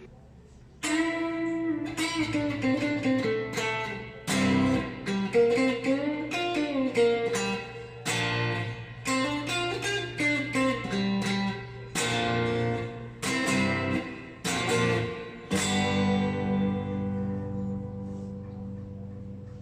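Electric guitar played clean through a Vox VT40X modelling amp: a short composed piece of picked chords and single-note melody starts about a second in. It ends on a chord left to ring and slowly fade.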